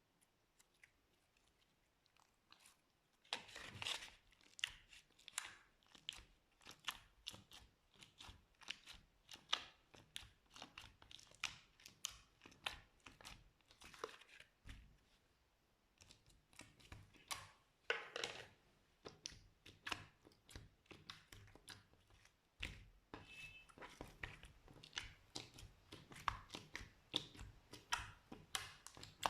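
Slime being squished and poked, giving an irregular run of small clicks and pops that starts about three seconds in and briefly lets up in the middle.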